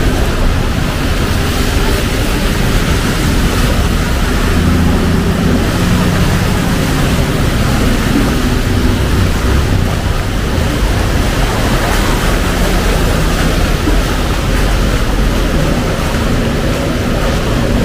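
Heavy rain falling in a steady, dense hiss. Passing vehicles add a low engine hum partway through and again near the end.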